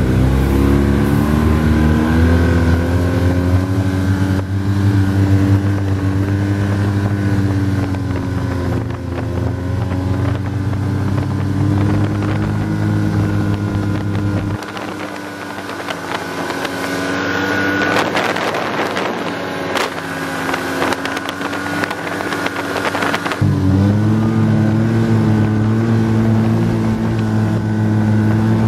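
Snowmobile engine running steadily under way. Partway through, its note drops away for about nine seconds, leaving wind noise and a few knocks, then comes back.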